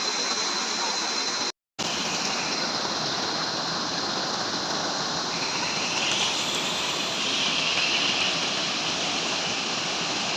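Waterfall rushing steadily, an even wash of falling water with no speech, cut by a brief dropout to silence about a second and a half in.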